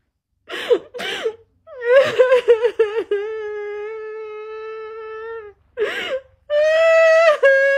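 A woman crying hard: two sharp sobbing breaths, broken sobs, then a long wailing cry held at one pitch. A gasping breath follows, then a second long wail.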